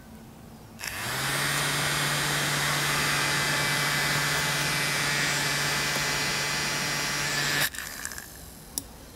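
A small electric motor starts and runs steadily with a whirring hiss and a low hum for about seven seconds, then is switched off abruptly with a click.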